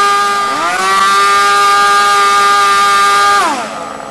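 SH Engines PT21XB1 .21 nitro engine running at high revs on a break-in test stand, turning a propeller, with its exhaust led into a bucket. The pitch dips briefly about half a second in and comes back up. Near the end the revs drop sharply as it is throttled down.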